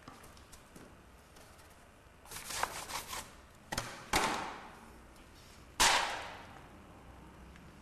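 A rattling clatter of quick knocks about two seconds in, then three sharp knocks with short ringing tails, the last the loudest, like hard objects or tools set down or struck on a hard surface.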